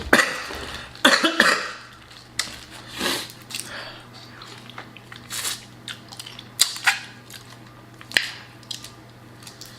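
A person eating boiled crawfish and shrimp close to the microphone: a string of sharp, irregularly spaced smacks and cracks, with chewing between them.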